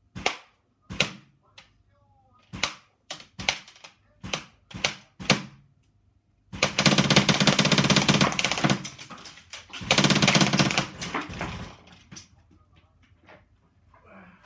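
Airsoft Steyr rifle with an electromagnetic valve firing at a paper target: about eight separate shots over the first five seconds, then two full-auto bursts of about two seconds each, with a few fainter clicks near the end.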